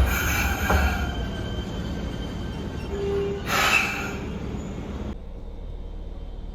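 Fukuoka City Subway 1000N-series train running at a station: rolling noise with some high steady tones and brief squeals, then cutting suddenly to a quieter, duller train sound about five seconds in.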